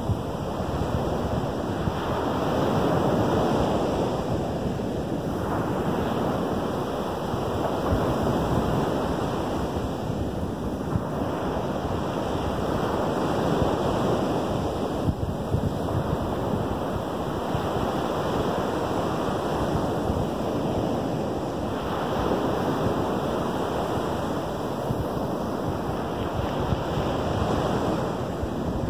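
Small Lake Michigan waves breaking on a sandy beach, the wash of surf swelling and easing every five seconds or so. Wind buffets the microphone throughout.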